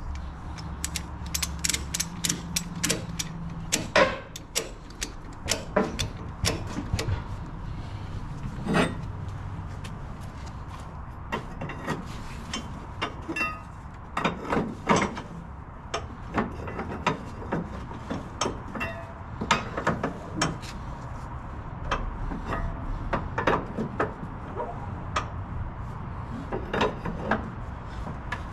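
Flatbed trailer strap winch being tightened with a winch bar: the pawl clicks over the ratchet teeth in irregular runs of sharp clicks, with a few louder metal knocks.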